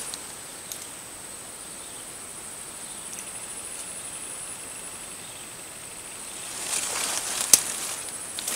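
Insects droning with a steady high-pitched whine in swamp vegetation. Near the end there is a brief rustle, and a single sharp click stands out as the loudest sound.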